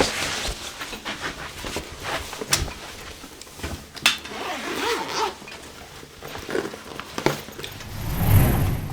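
A few sharp cracks at uneven spacing over rough rustling and handling noise, with a low rumble swelling near the end.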